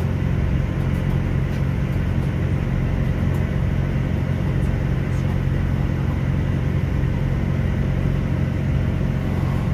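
Class 166 diesel multiple unit heard from inside the carriage while running along: the underfloor diesel engine's steady hum over a constant rumble from the wheels and running gear.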